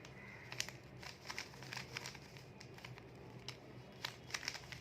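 Plastic 3×3 Rubik's cube being turned in quick succession, its layers giving faint, irregular clicks and clacks as an algorithm is run on the last layer's corners.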